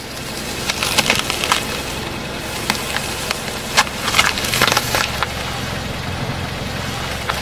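A green apple cracking and crunching as a car tyre rolls over it and crushes it, a run of sharp cracks in uneven clusters over a steady low hum.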